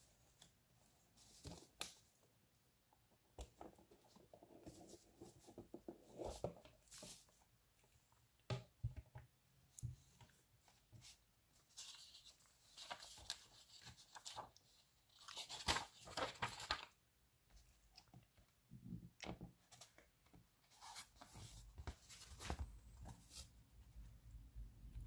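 Faint, intermittent rustling and crinkling of paper sheets and a cardboard box being handled, with scattered light taps. The rustling is densest around the middle.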